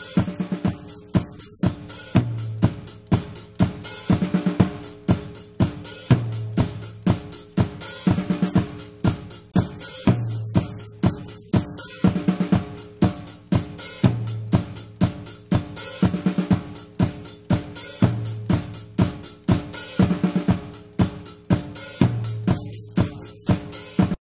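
Recorded music: a drum kit groove of kick, snare and hi-hat with a bass line, looping in a pattern that repeats about every four seconds, then stopping abruptly.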